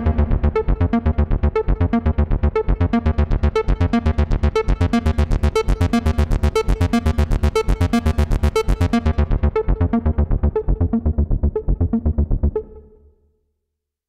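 Access Virus TI synthesizer playing a fast sequenced bass pattern of rapidly repeating notes. The filter cutoff is opened so the tone turns bright in the middle, then closed so it grows dull. The sequence stops near the end and fades out.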